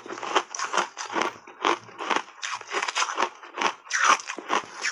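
Refrozen block ice being bitten and crunched between the teeth, a steady run of crisp crunches about two to three a second.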